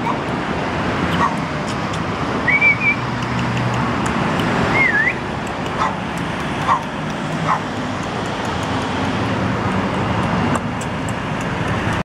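A person whistling two short wavering notes and making short clicking sounds with the mouth to coax a cat, over steady street traffic.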